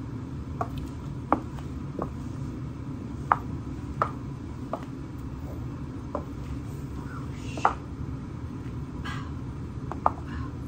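Stiletto-heeled strappy sandals clicking on a tile floor with each step: about nine sharp heel strikes, in short runs about two-thirds of a second apart with pauses between. A steady low hum runs underneath.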